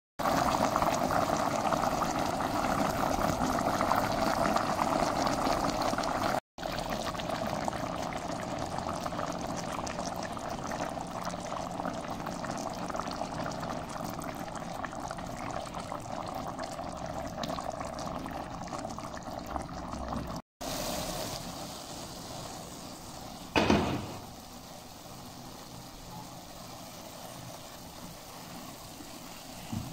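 Rice and chicken pieces bubbling at a boil in a pot, a steady bubbling hiss that drops to a quieter simmer about two-thirds through as the water cooks off. A single sharp knock about 24 seconds in.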